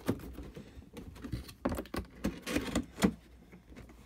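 Handling of figure parts in clear plastic bags: scattered light taps, clicks and brief rustles of plastic, thinning out near the end.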